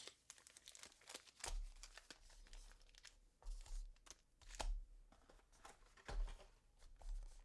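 Faint crinkling and rustling of plastic and cardboard packaging, with scattered light clicks and several soft bumps, as Pokémon card set boxes and bags are handled and unpacked.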